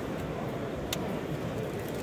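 Steady background murmur of a crowd in a large hall, with one light click about a second in.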